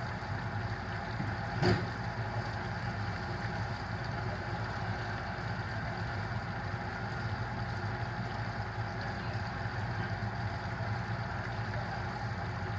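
Steady motor hum with a hiss spread above it, unchanging throughout, and a single short knock about two seconds in.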